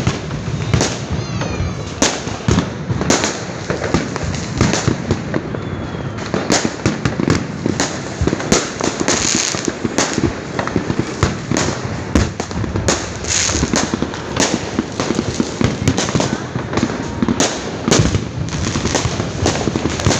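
Fireworks and firecrackers going off without pause, many bangs and cracks overlapping into a continuous barrage. A brief whistle sounds about two seconds in.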